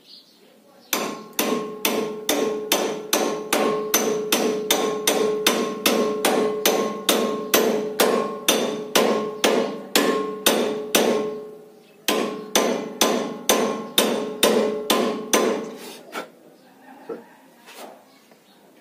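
Hammer blows on a steel tractor steering arm, driving it down onto the top of the front-wheel spindle to seat it. A steady run of ringing metal strikes, about two and a half a second, pauses briefly near the middle, resumes, and thins to a few scattered taps near the end.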